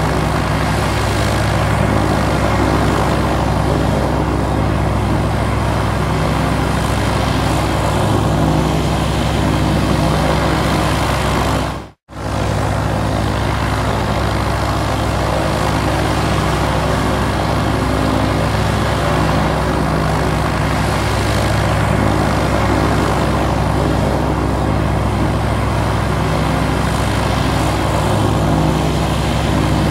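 Single-engine piston airplane engine and propeller running steadily, heard from inside the cabin during the takeoff run. The sound cuts out for an instant about twelve seconds in.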